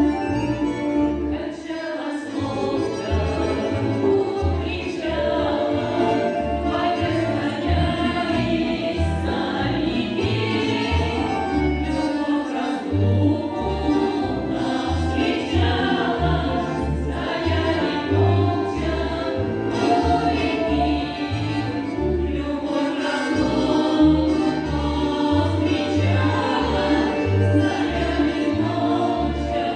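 Women's folk choir singing together to accordion accompaniment, the accordion's bass notes keeping a steady beat of about two a second under the voices.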